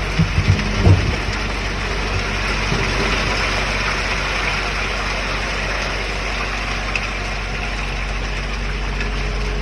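Heavy diesel engines of a concrete mixer truck and concrete pump running steadily, a constant rushing noise over a low hum, with a few short knocks in the first second.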